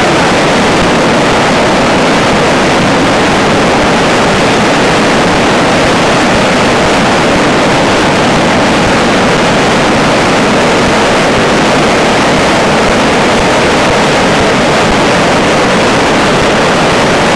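Loud, steady rush of a river in flood: muddy torrent water pouring and churning over the ground, an even roar that does not let up.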